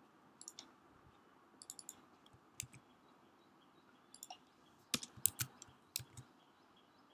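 Faint clicks of a computer mouse and keyboard keys, some single and some in quick runs, with the sharpest clicks about five to six seconds in.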